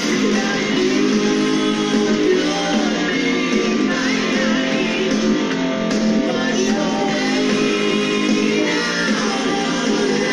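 Music with guitar playing and some singing.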